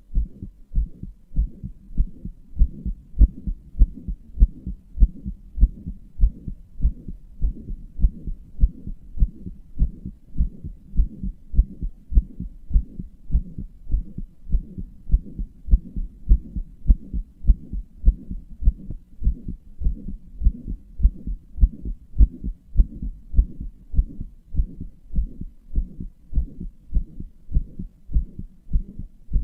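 A human heartbeat with a heart murmur: regular, evenly spaced low thumps with a soft haze of sound between them, kept up at a steady pace throughout.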